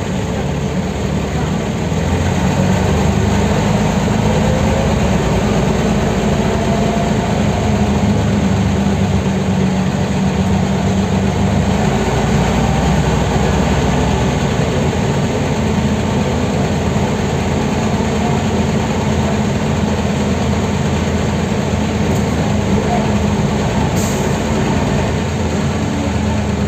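Mercedes-Benz O305 city bus heard from inside the passenger cabin while driving: its six-cylinder diesel engine drones steadily under the cabin noise. The sound swells in the first couple of seconds as the bus pulls away and eases slightly near the end.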